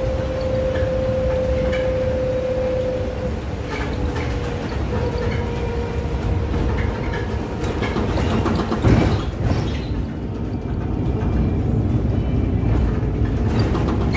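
Electric city bus driving, heard from the cab: steady road and tyre rumble with a constant whine that drops slightly in pitch about three seconds in. About nine seconds in comes a brief, louder jolt or bump.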